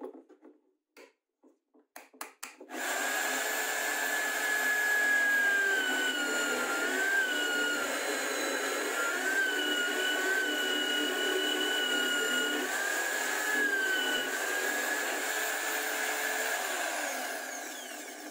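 Homemade drill press motor running while a spade bit bores into a clamped wooden block, its whine wavering in pitch a few times. It starts about three seconds in, after a few clicks and knocks of the clamp being set.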